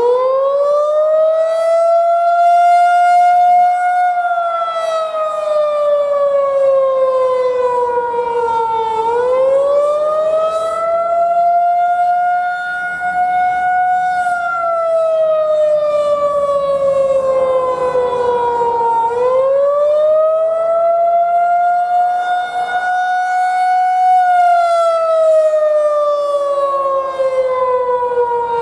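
Federal Signal 2001-130 rotating outdoor warning siren sounding the attack signal: its motor is powered and cut in turns, so the wail climbs to its high tone, holds a few seconds, then slides down, about every ten seconds. It is still winding up at the start and makes three such rise-and-fall cycles.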